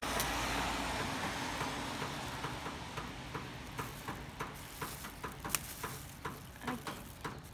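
Plastic shopping bag crinkling and crackling as it is held: a steady hiss that slowly fades, with many irregular sharp ticks.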